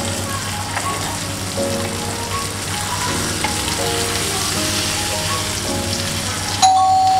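Marinated chicken breasts sizzling steadily in a hot ridged grill pan. There is a sharp knock near the end.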